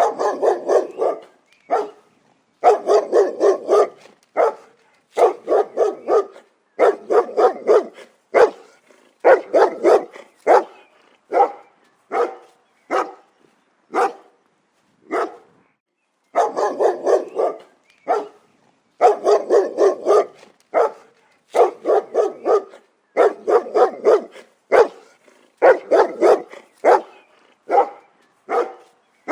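Dog barking over and over, in quick runs of three to six barks with short pauses between the runs.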